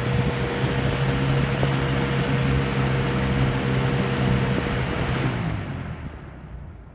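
Lasko box fan running on medium, a steady rush of air over its motor's electrical hum. About five seconds in the hum cuts off as the fan is switched off, and the air noise fades as the blades spin down.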